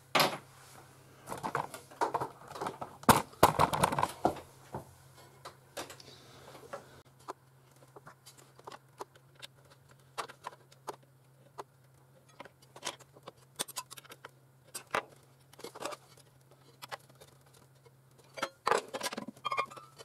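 Small clicks, taps and light metallic rattles of a scroll saw's blade and pinless blade clamps being handled and tightened by hand, with busier clusters of knocks in the first few seconds and again about a second before the end. A faint steady low hum runs underneath.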